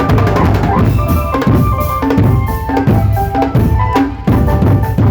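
Drumband playing: bass and snare drums beating under a steady melodic line.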